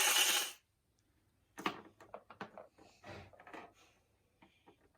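Toys and small plastic pieces being handled: a scatter of short knocks and rustles for about two seconds, then a few faint ticks.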